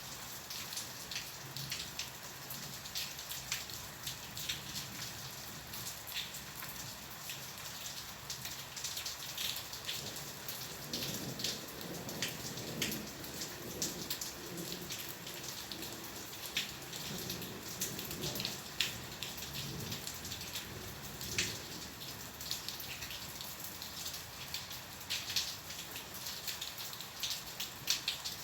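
Steady rain falling, with many close drops landing as irregular sharp ticks over a constant hiss. A faint low rumble swells and fades in the middle.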